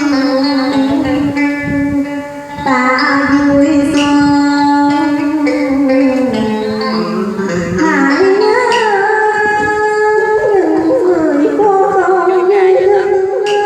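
Đờn ca tài tử music: a long held, sliding melodic line over occasional plucked-string notes, with no sung words.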